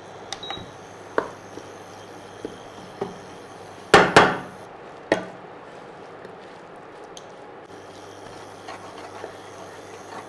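Kitchen utensils knocking and clinking against a cooking pan and containers during stir-frying: scattered sharp knocks, the loudest a quick pair about four seconds in, then one more a second later.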